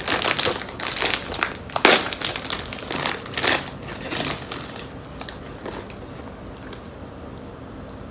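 Plastic chip bag crinkling as it is handled, a run of rustles with two louder crackles, dying away after about four seconds.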